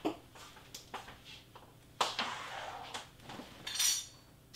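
Knocks, clicks and rustling as objects are handled and set down off the mat, with a brief hiss near the end.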